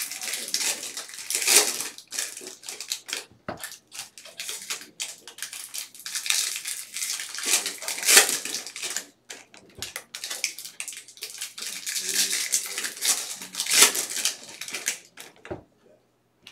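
Foil trading-card pack wrappers crinkling and tearing as packs of cards are opened and handled, in irregular bursts with three louder crinkles spread through.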